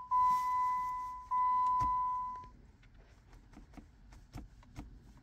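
A steady, high electronic warning tone, broken briefly twice, that stops about two and a half seconds in, followed by a run of faint, light ticks at about four or five a second.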